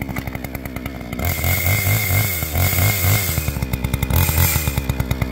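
Noker 58cc two-stroke chainsaw running just after a warm pull start without choke, revved up in two long bursts, the second near the end.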